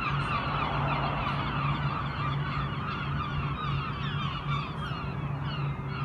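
A big flock of gulls calling all at once in a dense, squabbling chorus of short, falling cries. The filmer believes crows got in among them and the gulls ganged up to drive them off. A steady low hum runs underneath.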